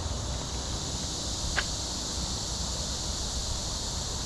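Steady high-pitched drone of insects in the outdoor background, over a low rumble. A single short chirp sounds about one and a half seconds in.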